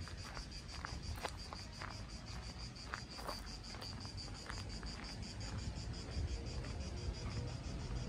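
Insects chirping steadily in a fast, even pulse, high-pitched, with a low rumble underneath.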